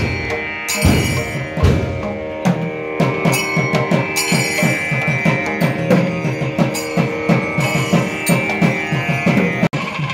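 Kerala temple percussion ensemble playing: quick, even drum strokes under a held wind-instrument tone. The sound cuts out for a split second near the end.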